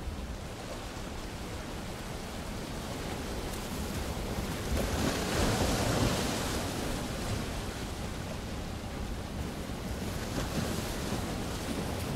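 Surf washing onto a sandy beach, a steady rushing with wind buffeting the microphone, swelling up about halfway through.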